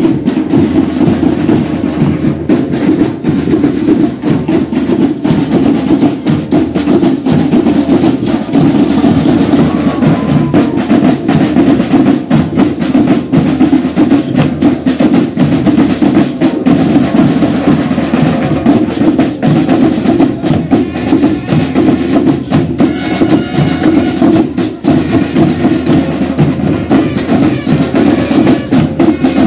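A marching band's drum section, with snare and bass drums, plays a dense, steady parade beat with rolls.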